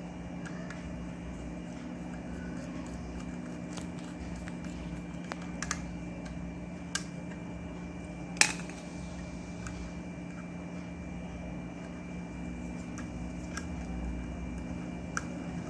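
Scattered light clicks and taps of hands handling the ceiling fan's capacitor and its wires, the sharpest about halfway through, over a steady background hum.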